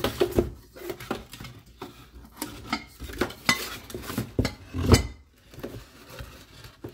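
Knocks and clinks of a pan, its lid and a spatula being handled and set in place, with a louder knock about five seconds in.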